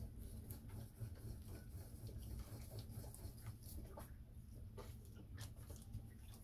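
Faint, irregular scraping and crinkling as a wooden mixing stick works two-part epoxy repair compound (resin and catalyst) against a plastic bag, over a low steady rumble.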